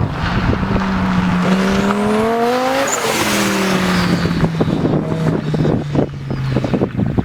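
Straight-piped Audi 2.2 turbo five-cylinder (AAN) in a racing buggy, revving up hard to a peak about three seconds in, then falling away as the throttle comes off. Crackles and pops from the exhaust come in as the revs drop.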